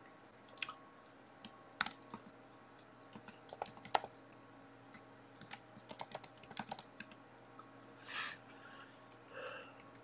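Typing on a computer keyboard: irregular single key clicks, spaced out with short pauses, as a short terminal command is typed in.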